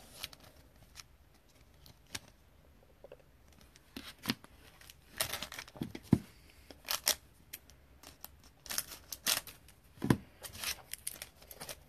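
A plastic card sleeve and a sealed foil trading-card pack being handled: scattered short crinkles and clicks that start a few seconds in.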